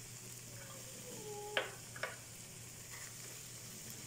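Chopped boiled eggs being scraped with a silicone spatula from a glass bowl into a pan of frying masala: a faint sizzle under two sharp knocks about half a second apart, near the middle.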